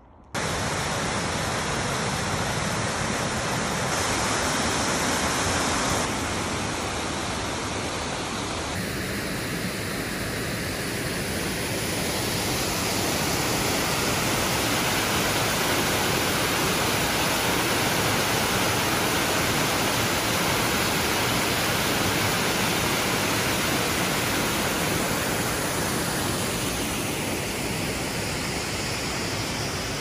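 Steady, loud rushing of a waterfall and fast river water, cutting in abruptly just at the start, with small shifts in tone a few seconds in and again near ten seconds.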